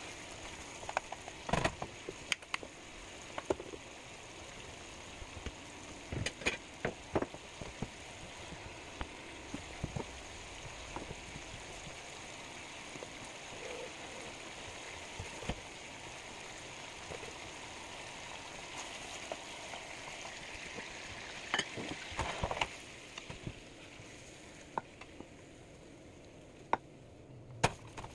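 Bacon strips frying in a nonstick skillet on an electric coil burner: a steady sizzle with scattered sharp pops and crackles of spitting fat. Near the end the sizzle dies down, followed by two sharp knocks.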